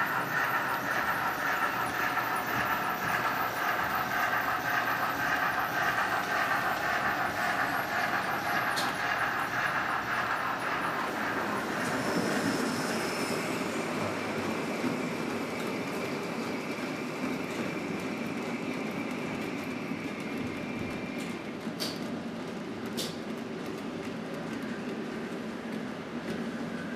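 HO-scale Märklin model trains running on the layout: the steady whir of motor and wheels on the track as a freight train of wagons rolls past. The noise turns to a lower rumble partway through, and a couple of sharp clicks come near the end.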